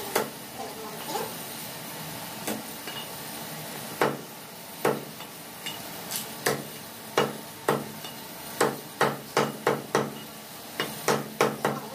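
Meat cleaver chopping a raw chicken into pieces on a thick wooden chopping block: a run of sharp chops, a few spaced ones at first, then coming quicker, two or three a second, in the second half.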